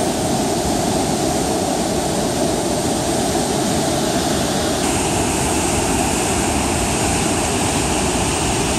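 White water of a river pouring through a narrow rock gorge below a waterfall: a loud, steady rush.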